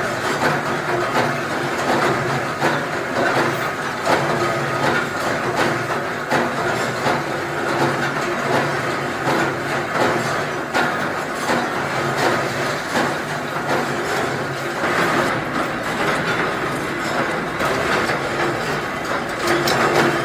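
Factory production machinery running steadily, with a dense, rapid clatter of small metallic clicks and knocks over a continuous hum.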